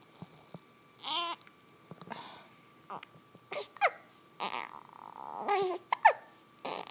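Baby hiccupping while fussing: short whimpers and babble, broken by two sharp, squeaky hiccups, one past the middle and the louder one near the end.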